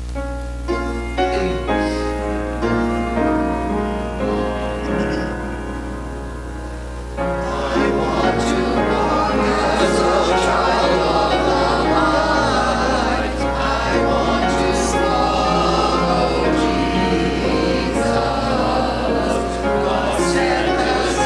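Upright piano playing an introduction, then a mixed church choir of men's and women's voices comes in about seven seconds in and sings a hymn with the piano accompanying.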